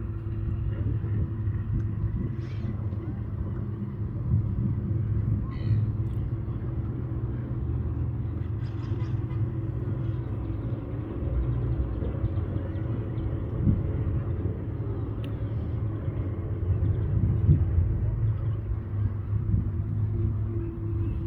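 Beach ambience: a steady low rumble, with a few brief faint high chirps or clicks scattered through it.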